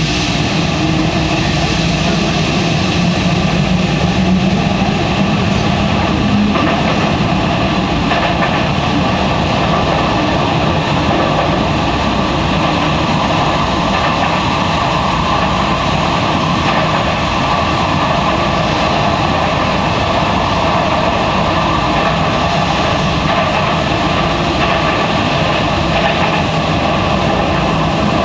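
Osaka Metro series 70 linear-motor subway train running at speed through a tunnel, heard from inside a motor car: steady running noise of the wheels on the rails and the car in the tunnel. A low hum heard in the first few seconds fades out.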